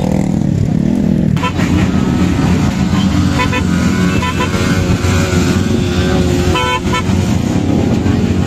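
Motorcycle engines running in thick traffic, with short vehicle horn toots a few times.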